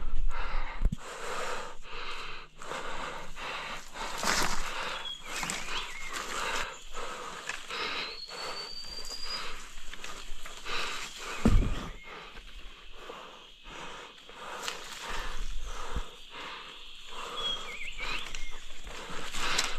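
Irregular rustling and knocking, with a heavier thump about two-thirds of the way through and a few short high chirps.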